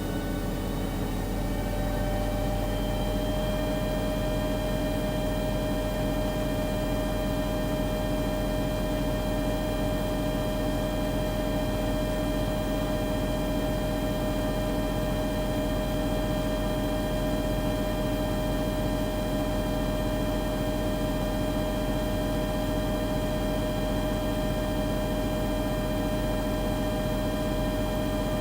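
Panasonic NA-LX113BL drum washer-dryer running: a motor whine rises in pitch over the first couple of seconds, then holds steady over a low hum.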